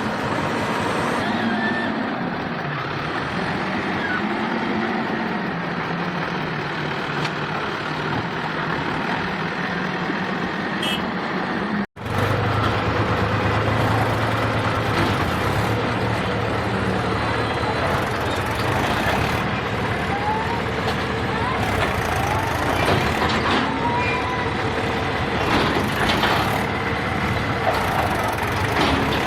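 Diesel engine of working earthmoving machinery running steadily. The sound cuts out for an instant about twelve seconds in, then carries on louder with a deeper engine note.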